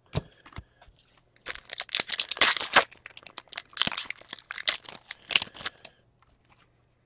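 A foil trading-card pack wrapper being torn open and crinkled. A couple of single crackles come first, then from about a second and a half in a dense run of tearing and crinkling lasts about four seconds.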